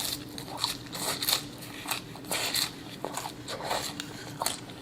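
Close-up chewing of crispy loaded fries: a run of irregular short crunches and crackles. A faint steady hum runs underneath.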